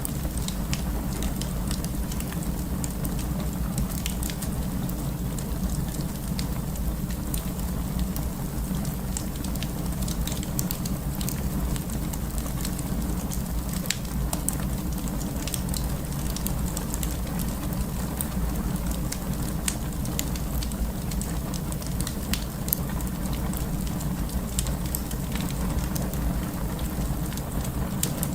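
Burning wood fire crackling: scattered sharp pops and snaps over a steady low rumble.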